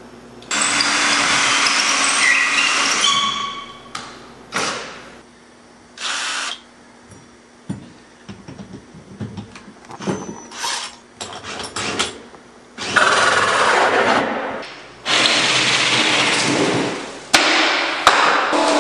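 Handheld power tool running in several bursts of one to three seconds each; in the first burst the motor's pitch drops as it takes load. Short knocks and clicks come between the bursts.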